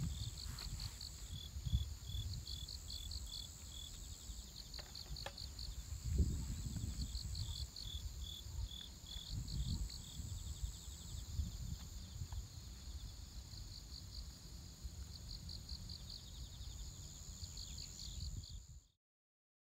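Insects chirping outdoors in short, repeated pulsed trills, over a steady high-pitched insect whine, with gusty wind rumble on the microphone. The sound cuts off suddenly near the end.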